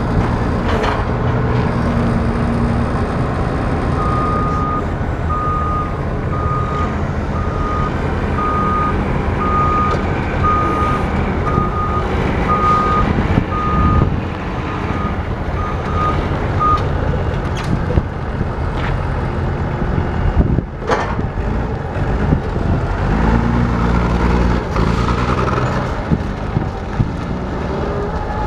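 Caterpillar DP40K diesel forklift running and being driven, its engine revving up now and then. A reverse alarm beeps about once a second for some thirteen seconds starting a few seconds in, and a few short knocks are heard.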